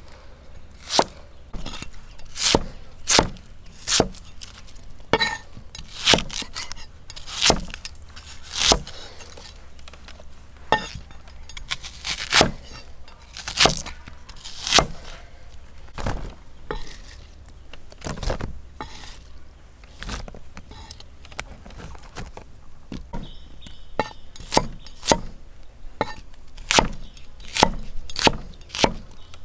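Cooking utensils knocking and clinking during food preparation: a long run of sharp, irregular strikes about one or two a second, some louder than others.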